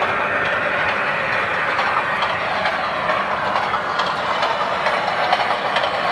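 Model diesel passenger train running on the layout's track: a steady rushing noise of motors and wheels, with light clicks as the cars pass close over the rails from about four seconds in.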